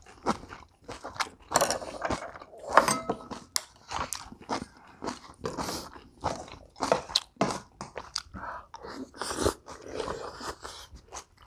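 Close-up crunching and chewing of people eating bibimbap with young radish (yeolmu) kimchi, a run of many short, irregular mouth and bite sounds.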